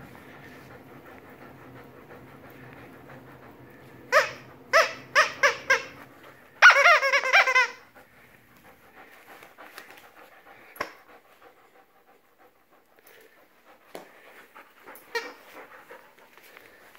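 A dog growling low while tugging on a rope toy, then a quick run of about five short high-pitched barks a little after four seconds in and one longer, wavering yelp near seven seconds. After that only light scuffling and clicks.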